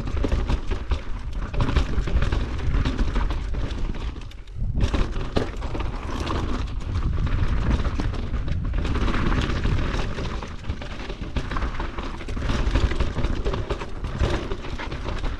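Downhill mountain bike riding fast over a rocky dirt trail: tyres rumbling and crunching over dirt and stones, the bike clattering with many short knocks, and wind buffeting the camera microphone. The noise drops briefly about four and a half seconds in, then picks up again.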